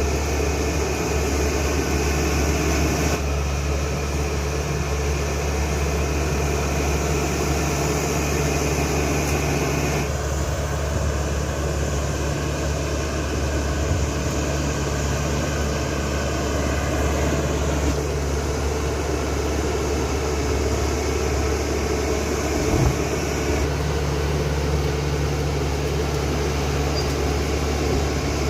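CAT D5K XL bulldozer's diesel engine running steadily with a deep, low drone. Its tone shifts abruptly a few times, and there is a single short knock about three quarters of the way through.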